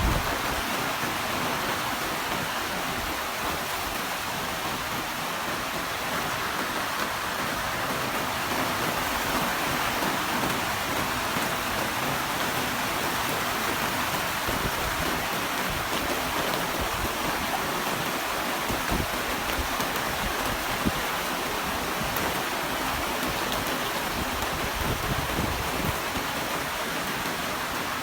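Heavy rain falling, a steady, even hiss with no thunder.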